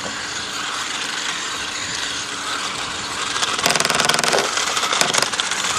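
Remote control car's small electric motor and gears running with a steady whirring and rattling, getting louder with fast clicking and rattling from about three and a half seconds in.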